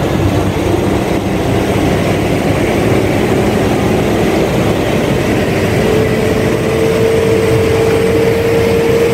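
Heavy dump truck loaded with gravel, its diesel engine running hard as it tries to climb soft, wet mud. The engine tone rises a little about halfway through and then holds steady.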